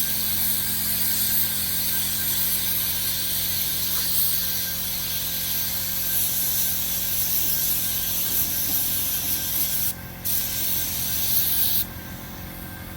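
Compressed-air paint spray gun hissing as it sprays paint. It runs in one long pass with a brief break about ten seconds in, then stops about a second before the end.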